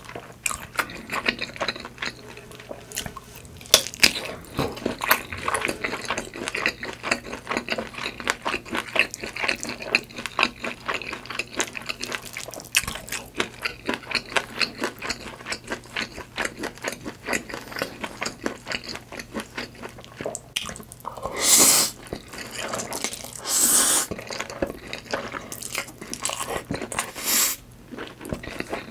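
Close-miked wet eating sounds: a rapid run of smacking, clicky chewing, with a few longer, louder slurps about two-thirds of the way through.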